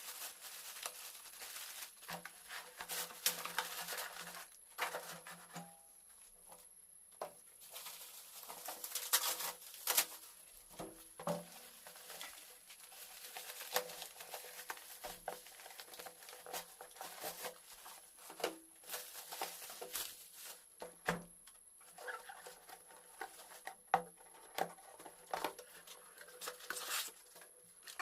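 Hand work on small parts: scattered light clicks, taps and rustling, with a faint steady high-pitched whine underneath.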